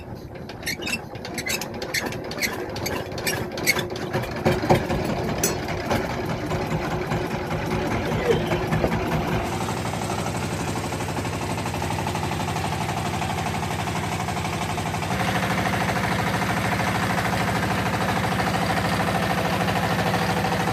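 Wooden fishing boat's engine starting with a run of sharp knocks, then running steadily; its note changes about ten seconds in and it gets louder around fifteen seconds.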